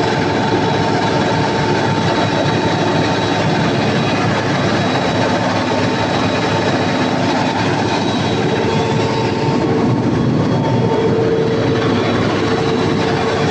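Cummins KTA50 V16 turbocharged diesel generator engine running steadily and loudly, with steady whining tones over the engine noise.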